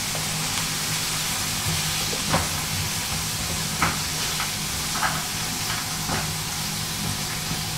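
Wok vegetables sizzling in a hot frying pan, a steady hiss, broken by a few short scrapes and clicks as a utensil stirs them through the pan.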